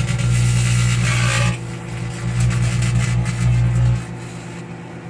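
Plasma burning inside a running microwave oven: a loud, steady electrical buzz with crackling hiss. The buzz cuts out about four seconds in, leaving the oven's quieter hum.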